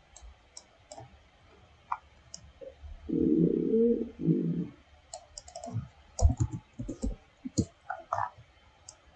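Scattered computer mouse clicks and light keyboard taps. About three seconds in there is a low hum-like sound lasting about a second and a half, followed by a few soft low thuds.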